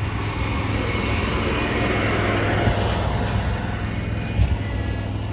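Ready-mix concrete truck's diesel engine running with a steady low rumble, and a rushing noise that swells in the middle and fades. A couple of low thumps come about four and a half seconds in.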